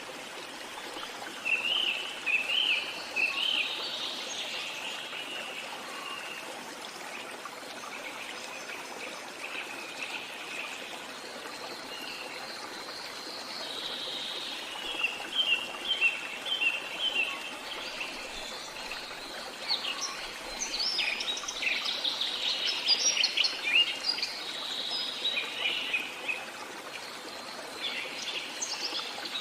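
Several songbirds chirping and singing over a steady rush of running water. The bird calls come in clusters of quick notes, busiest in the second half.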